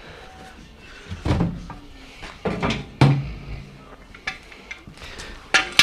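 A handful of knocks and clunks of tools or parts being handled and set down, the loudest about three seconds in and again near the end.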